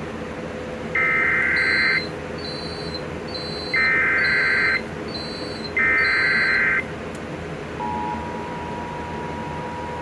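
Emergency Alert System SAME header: three one-second bursts of digital data tones, each repeat of the header a second apart, with faint short high beeps over them. About eight seconds in, the steady two-tone EAS attention signal starts and holds.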